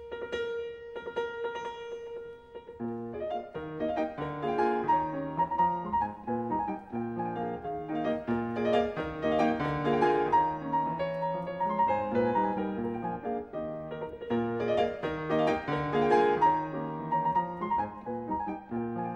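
Piano music, sparse at first and growing fuller, with a bass line, from about three seconds in.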